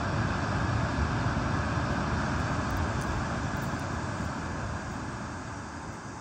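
River water rushing over a rocky cascade: a steady rush of white water, growing a little quieter near the end.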